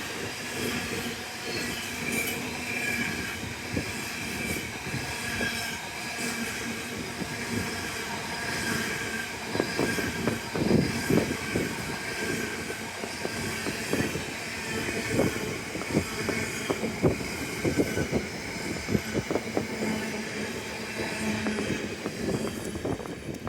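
A train running on the rails with a steady high wheel squeal. Quick clicks and knocks of wheels over rail joints grow thicker about halfway through.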